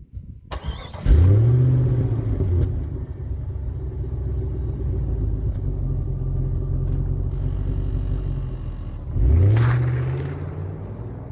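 Jeep Grand Cherokee WJ's 4.7-litre V8 exhaust: the engine catches about half a second in, is blipped to a quick rev, settles into a steady low rumbling idle, and is revved again once near the end before falling back.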